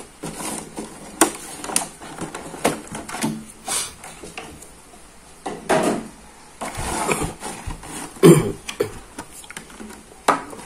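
Clear plastic figure packaging being handled and pulled apart: irregular crinkling and sharp plastic clicks, the loudest crackle about eight seconds in.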